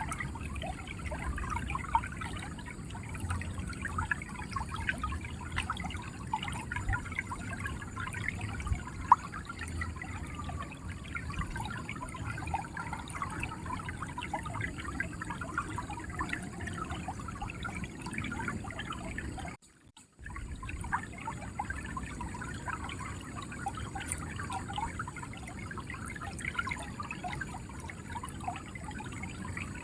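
River water flowing and gurgling steadily. About two-thirds of the way through it cuts out for a split second, then carries on.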